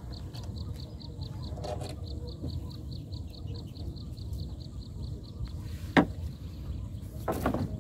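Rapid high-pitched chirping, about six pulses a second, over a low rustle of net and water handling; the chirping stops about five and a half seconds in. Then a sharp wooden knock, the loudest sound, as a pole strikes the wooden boat, followed by a short crackling rustle near the end.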